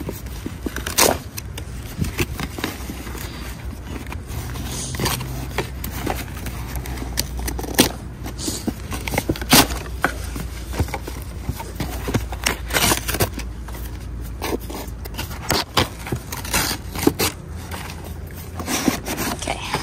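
Cardboard box being pried and torn open by hand: irregular scraping and sharp crackling of stiff paperboard flaps, with many short snaps along the way. The box is stubborn and hard to open.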